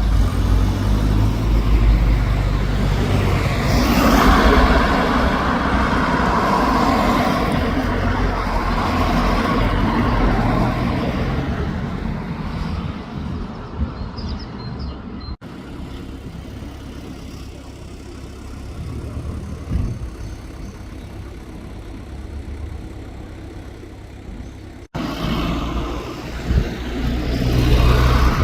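Zastava 750's small engine running as the car drives, with road noise; the sound is loudest in the first half, swelling about four seconds in, and breaks off abruptly twice.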